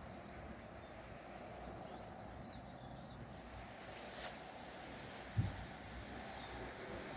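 Quiet outdoor ambience: a steady low background rumble with a few faint, high bird chirps, and one brief low thump about five seconds in.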